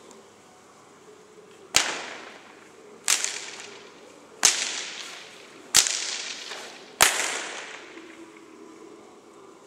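Lunge whip cracked five times at an even pace, about one crack every 1.3 seconds, each sharp crack echoing in an indoor riding arena.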